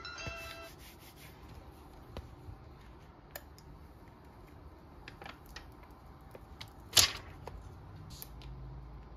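Hands handling a MOFT stick-on laptop stand against the underside of a laptop: soft rubbing and scattered light clicks, with one sharper knock about seven seconds in.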